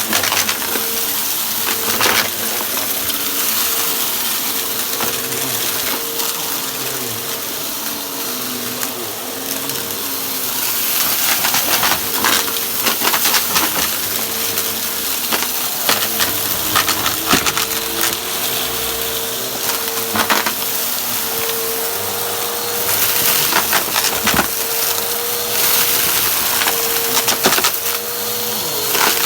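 Vacuum cleaner running with a steady motor whine and rushing air, sucking up small hard debris that crackles and rattles through it in scattered clicks.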